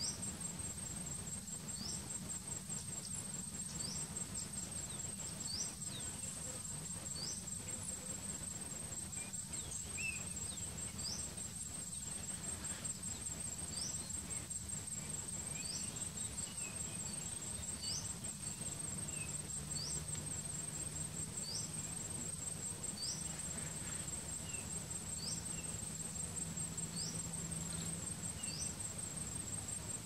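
A high, steady insect trill, like a cricket's, runs throughout. A short high rising chirp repeats about once a second over it, with a low hum underneath.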